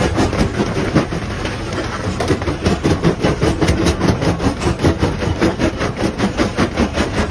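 Rhythmic mechanical clatter from a working machine, with even knocks about three times a second.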